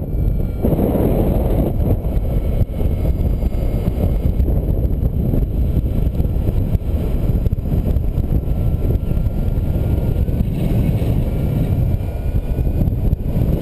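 Airflow buffeting the microphone of a camera on a paraglider's harness in flight: a loud, steady, deep rush of wind noise.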